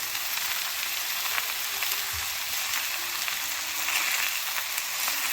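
Pepper rice sizzling and crackling steadily on a hot pan, the rice crisping into a scorched crust.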